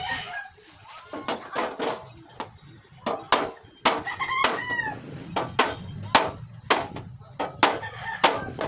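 Hammer tapping a pointed tool against a galvanized iron sheet: sharp metallic taps at an uneven pace, about two a second. A rooster crows about four seconds in.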